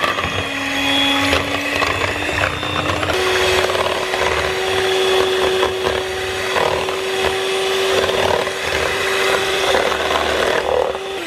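Corded electric hand mixer running steadily, its twin wire beaters whisking a thin mixture of milk, egg whites and vanilla into froth. The motor's whine steps up in pitch about three seconds in and holds there.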